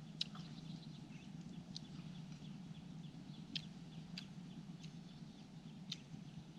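Someone eating up close: faint chewing with about half a dozen sharp, irregular mouth clicks and smacks over a steady low hum.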